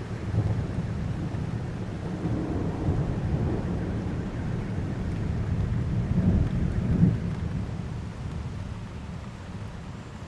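Thunder rumbling over a heavy, steady downpour of rain. The rumble swells about six to seven seconds in and then dies away.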